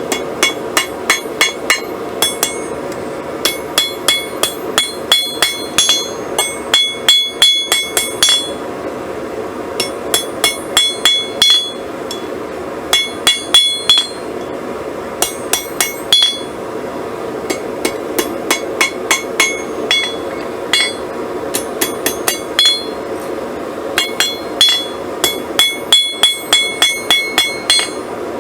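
Blacksmith's hammer striking 1/4-inch square steel stock on an anvil, forging over the nail end of a drive hook. The blows come in runs of about two to three a second with short pauses between, each one ringing. A steady rushing noise runs underneath.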